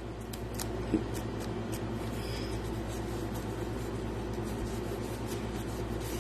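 Steady low room hum, with a few faint light clicks and crinkles of wrapping being handled while a stone is unwrapped; the clearest tick comes about a second in.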